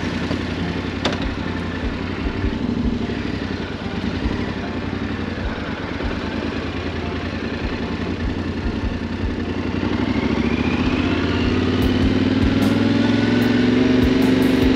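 Yamaha Ténéré 700's 689 cc parallel-twin engine running at low revs as the bike rolls off. About ten seconds in, the revs rise and the engine grows louder as it accelerates.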